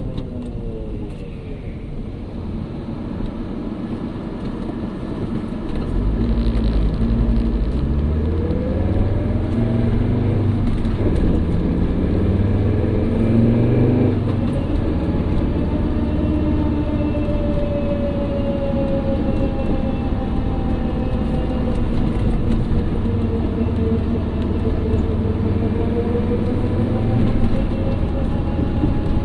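1997 Volvo 850 AWD running, with a whirring whine that slowly rises and falls in pitch over the steady rumble of the car; it gets louder about six seconds in. This whirr is a new noise the car has started making.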